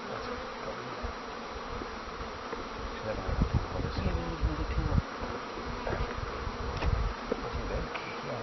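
Many honeybees buzzing steadily around an opened hive. Low rumbles come in about three to five seconds in and again around seven seconds.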